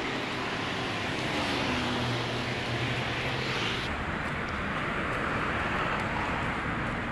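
City street traffic noise: a steady rush of passing vehicles. An engine hum swells for a couple of seconds around the middle, and the higher hiss drops away suddenly about four seconds in.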